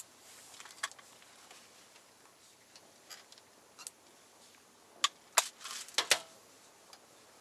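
Sharp, short clicks and knocks of fishing tackle being handled in a small boat: a few single ones, then a quick cluster of louder clicks about five to six seconds in.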